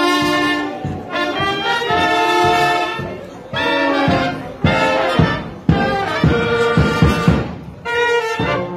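Street brass band with clarinets playing a march, sustained held notes and melody, with a run of sharp beats about halfway through.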